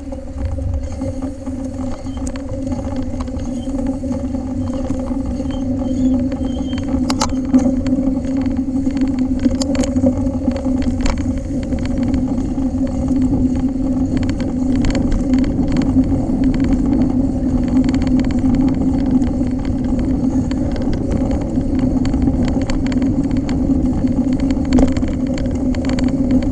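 Mountain bike being ridden along a trail: a steady hum with a low rumble underneath, and scattered clicks and rattles as the bike goes over the ground.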